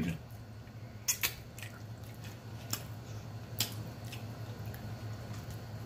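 Quiet eating and drinking sounds close to the microphone: about half a dozen short wet clicks and smacks in the first four seconds, over a low steady hum.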